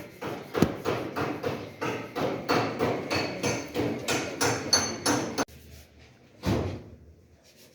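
A hand hammer striking metal in quick, even blows, about three a second, with a slight metallic ring, as in panel beating on a car body. The hammering stops abruptly about five seconds in, and one last blow follows a second later.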